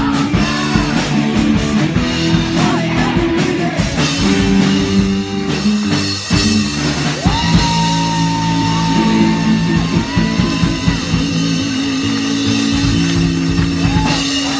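Live rock band playing loudly on drum kit and guitar.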